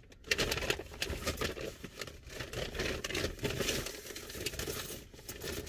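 Close, uneven rustling and crinkling with small rattles and scrapes, things being handled near the microphone.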